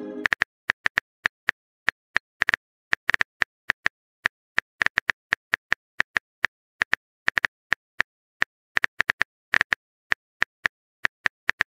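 Typing sound effect: a run of short, irregular keyboard clicks, several a second, as a text message is being typed.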